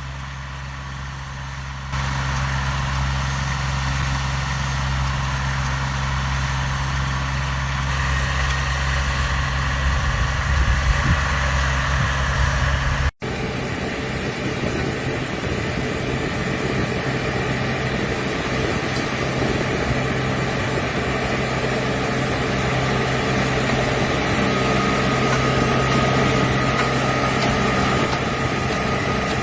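Farm machinery engines running steadily. The first is a low, even hum that gets louder about two seconds in. After a sudden cut about 13 seconds in, a different, rougher engine runs on.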